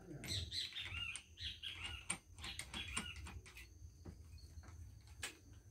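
A small bird chirping in a quick series of short rising-and-falling notes over the first few seconds, with scattered light clicks and a low steady hum underneath.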